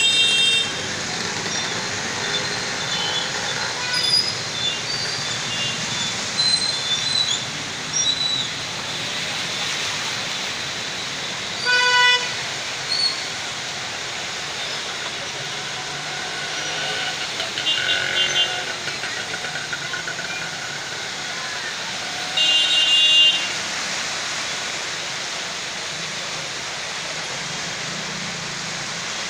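Scooters, motorcycles and cars moving slowly through floodwater on a city street: a steady wash of engine and splashing-water noise, with vehicle horns honking several times, the loudest a short blast about halfway through.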